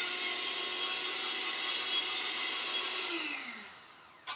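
Handheld electric mixer running steadily with its beaters in a stainless steel bowl of batter. About three seconds in it is switched off and the motor winds down with a falling whine, and a sharp click follows near the end.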